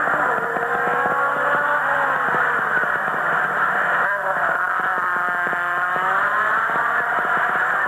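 A pack of sports-class saloon racing cars of up to 1800 cc running and accelerating together, several engine notes rising and falling over one another. The sound has the narrow range of an old recording.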